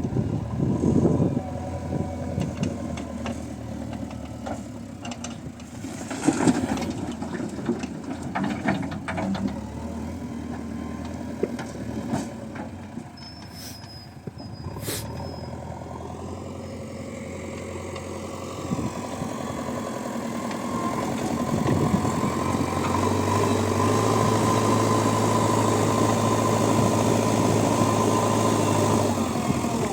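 Heavy diesel engine running, with scattered clanks and knocks in the first half. About two-thirds of the way in the engine rises to a louder, steady, higher-revving drone.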